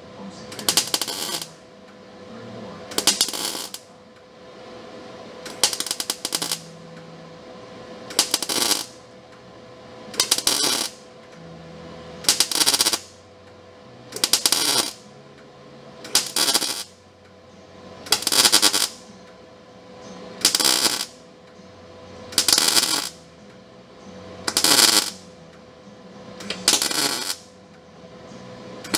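MIG welder laying short spot welds on sheet-metal cab panels: a crackling sizzle about half a second long, repeated roughly every two seconds, some thirteen times, over a faint steady hum.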